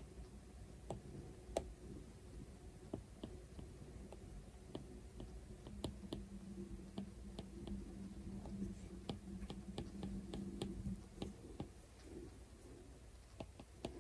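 Apple Pencil tip tapping and clicking on the iPad's glass screen in quick short strokes, faint and irregular, coming thickest in the middle stretch. A low steady hum runs under the middle part.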